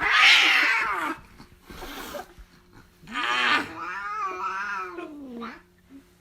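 A cat yowling: a loud harsh cry at the start, then a long wavering yowl from about three seconds in that drops in pitch as it ends.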